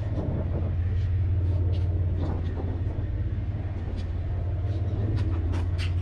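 Boat engine running steadily with a low hum, with a few short knocks near the end.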